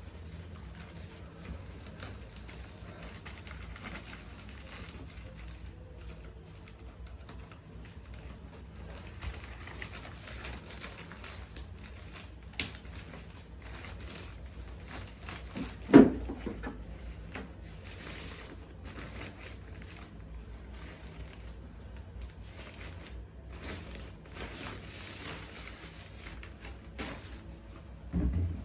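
Packaging rustling and crinkling with scattered light clicks as a boxed turntable is handled, and one louder knock about sixteen seconds in.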